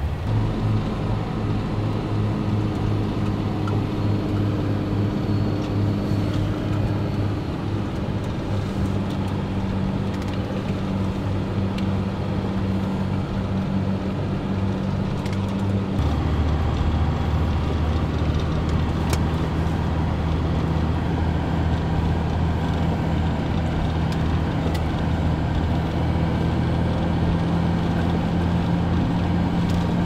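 Car engine and road noise heard from inside the cabin while driving through snow: a steady running drone whose note shifts lower and louder about halfway through.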